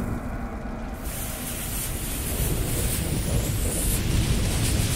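Fire sound effect of an animated logo intro: a steady low rumble with a rushing hiss that comes in about a second in.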